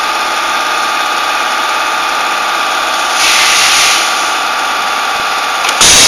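Semi-automatic wire strip-and-crimp machine running with a steady mechanical hum. About three seconds in there is a hissing burst lasting under a second, and just before the end comes a sharp, loud stroke of the crimping press.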